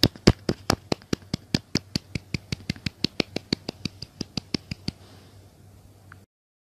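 A fast, even run of about thirty sharp clicks, roughly six a second and quickening slightly, that stops about five seconds in; the sound then cuts out entirely.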